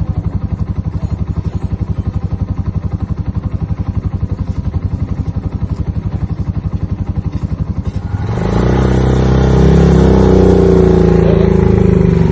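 Suzuki 250 single-cylinder motorcycle engine idling with an even, rapid thump. About eight seconds in it gets louder and higher as the engine is revved up.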